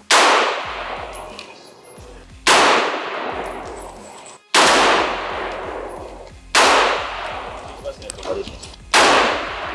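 AR-15-style semi-automatic rifle fired five single shots, roughly two seconds apart. Each crack is followed by a long, fading echo.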